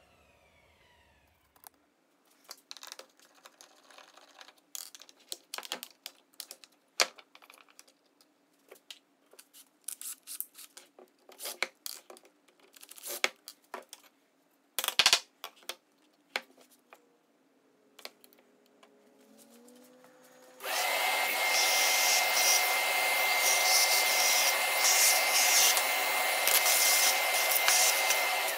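Clicks and knocks of a plunge router's base plate and screws being handled on a workbench, then a workshop vacuum switches on suddenly and runs steadily with a high whine through its hose, stopping at the end.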